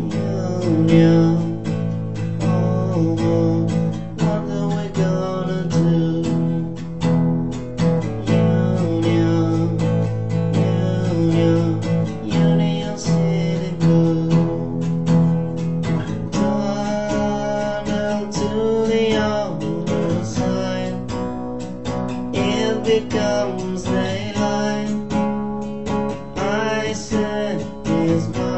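Acoustic guitar strummed in chords, the chords changing every few seconds as a song is played.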